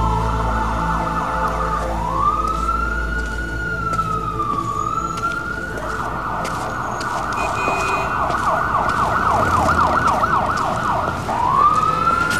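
Emergency vehicle's electronic siren switching between its slow wail and fast yelp. It starts with a brief yelp, then gives one slow rising-and-falling wail lasting about four seconds. It then yelps rapidly for about five seconds and begins rising into a wail again near the end.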